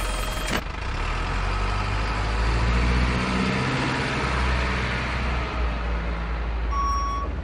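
Truck engine running, its pitch rising about two to three seconds in and then settling back to a steady run. Near the end a reversing beeper sounds once.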